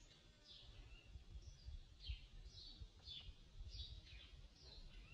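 A small bird calling again and again, short chirps that fall in pitch, about two a second. Soft low thumps sound under them, the strongest about two seconds in.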